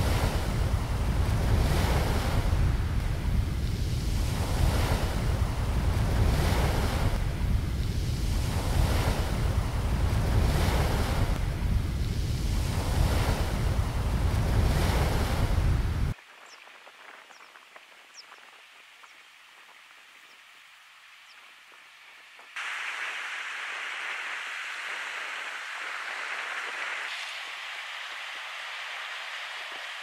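Sea surf washing against a rocky shore, surging every couple of seconds, with wind rumbling on the microphone. About sixteen seconds in it cuts off to a much quieter stretch with a few faint high chirps, and a steady hiss sets in near the end.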